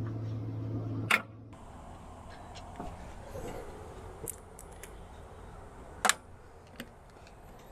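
A steady low hum cuts off about a second in with a sharp click. After that, light metallic clicks and ticks of hand tools working on a backhoe's solenoid housing, with a sharp click near the six-second mark.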